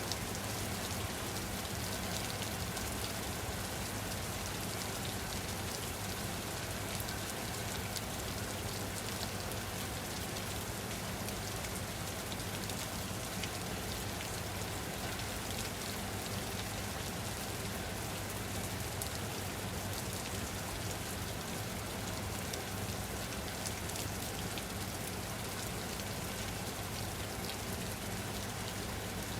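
Steady rain falling on a surface, a dense even patter of raindrops with a constant low rumble beneath.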